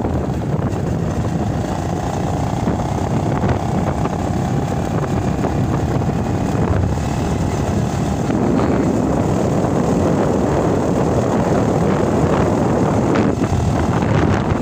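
Motorbike engine running steadily while riding along a road, mixed with wind and road rush; it grows a little louder about eight seconds in.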